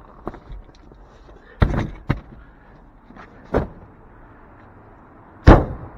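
Sharp clunks of a 1960 VW Beetle's seat and door being handled: a loud double clunk about a second and a half in, another about three and a half seconds in, and the loudest near the end, a door slam.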